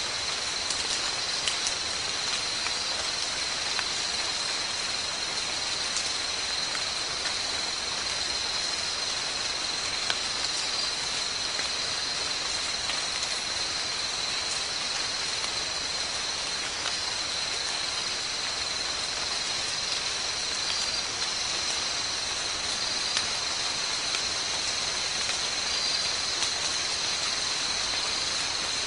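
Steady chorus of forest insects: a continuous high-pitched whine, unchanging throughout, over an even background hiss.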